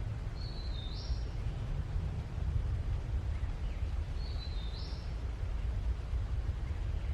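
A bird gives the same short chirping call twice, about four seconds apart, over a steady low rumble.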